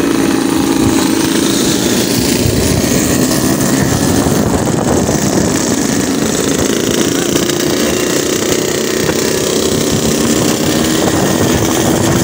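Yamaha RX-King single-cylinder two-stroke motorcycles running together at cruising speed, a steady engine drone heard from a bike riding among them.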